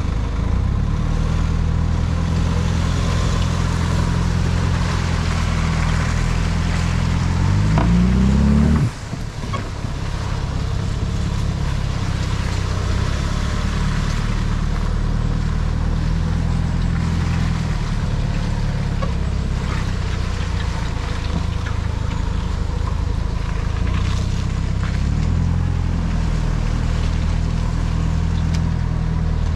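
Vehicle engine running steadily while driving along a muddy track. About eight seconds in its pitch climbs as it revs, then breaks off abruptly, and the steady engine note resumes.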